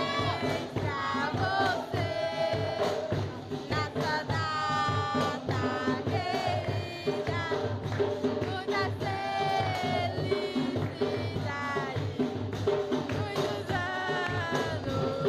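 Capoeira song: a voice singing over drum and hand percussion keeping a steady beat.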